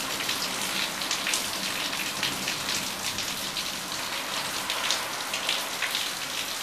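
Heavy rain pouring onto a flooded yard: a dense, steady hiss of drops splashing into standing water, with many sharper individual drop hits scattered through it.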